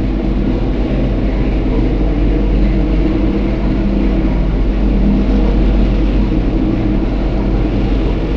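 Passenger lift car travelling between floors, heard from inside the car: a steady hum and rumble with a low drone.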